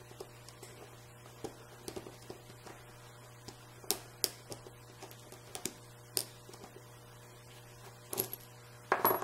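Small metal clicks and ticks of a tool prying at the back of a brass Schlage Everest KIK lock cylinder to get it off. The clicks are scattered and sharp, with a closer run of clatter near the end as the back comes loose.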